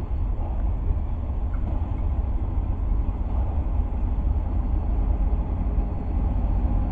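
DFB-class diesel-electric locomotive approaching at the head of a passenger train, giving a steady low rumble.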